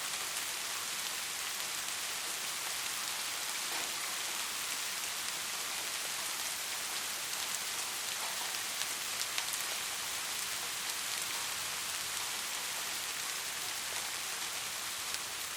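Soft, steady rain falling on a surface: an even hiss with scattered individual drop patters.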